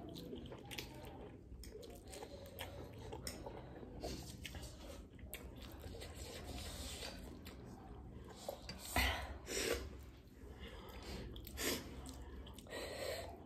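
People eating spicy instant ramyun noodles: close chewing and mouth noises, with a few short, louder noisy sounds in the second half.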